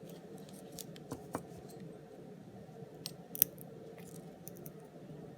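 Small scattered clicks and taps of a diecast toy car and its parts being handled and taken apart, with one sharper click about three and a half seconds in, over a faint steady hum.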